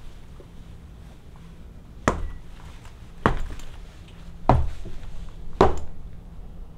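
Stiletto heels of platform boots striking a hard wood-look floor: four sharp footsteps, about a second apart, walking away.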